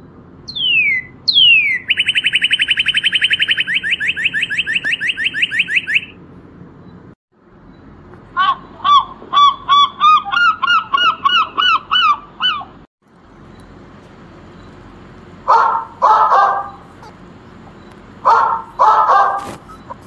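Northern cardinal singing: two down-slurred whistles, then a fast, even trill for about four seconds. Then a gull gives a quick series of repeated calls, and finally a dog barks twice in pairs.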